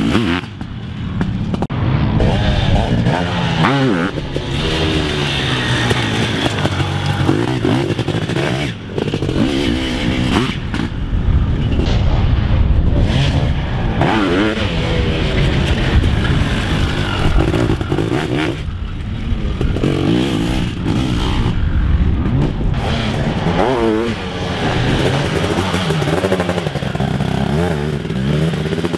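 Sidecarcross outfits' motocross engines racing around the track, revving hard and easing off again and again as they take the jumps and corners, with several machines overlapping.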